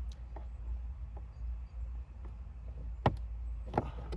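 Plastic dashboard trim panel being pried loose from its clips, giving scattered light clicks and knocks, with two sharper clicks about three seconds in and just before the end, over a low steady rumble.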